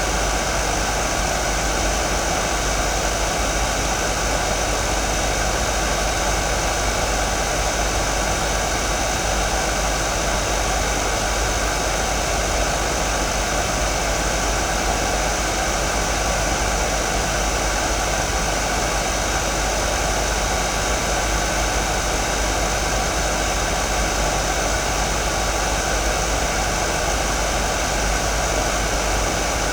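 Hair dryer running steadily: an even rush of blown air with a few faint steady tones in it.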